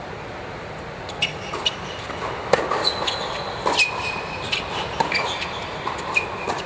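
Tennis rally on an indoor hard court: a ball is struck by rackets and bounces in several sharp hits, with short high squeaks of tennis shoes on the court surface, over steady background noise.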